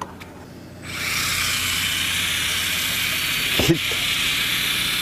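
A loud, steady hiss that starts suddenly about a second in and cuts off abruptly.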